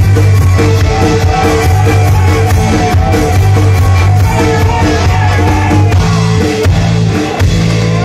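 Live folk-rock band playing loud: button-key accordion over electric guitar, bass guitar and drums with a steady beat. The rhythm breaks off about seven seconds in, leaving a held chord.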